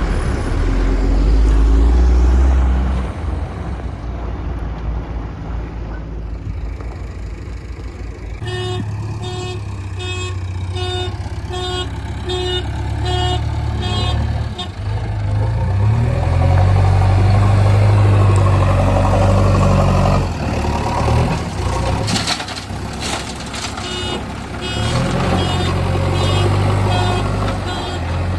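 Diesel engine of a JCB Eco Excellence backhoe loader working, swelling loudly in spells under load. From about a third of the way in, a reversing alarm beeps evenly, somewhat under two beeps a second. A short clatter of knocks comes about three quarters of the way through.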